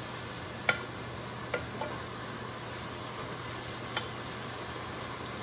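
Sliced onions, garlic and roasted red peppers sizzling in oil in a skillet while being stirred with a spatula, which knocks lightly against the pan a few times.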